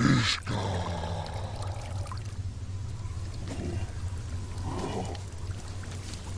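Water trickling and dripping over a steady low drone, opening with a sudden loud hit.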